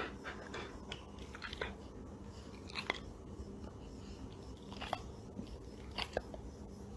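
A pet chewing and crunching on something, faint and irregular, over a low steady hum.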